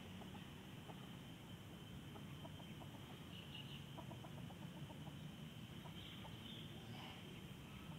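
Quiet outdoor ambience: a steady low rumble and a faint steady high whine, with a few brief, faint animal calls about three and a half, six and seven seconds in, and light ticks of rustling in between.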